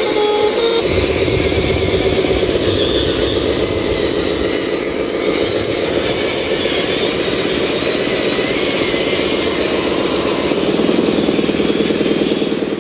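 A radio-controlled model truck's small electric motor and gearbox running with a steady, buzzing whine.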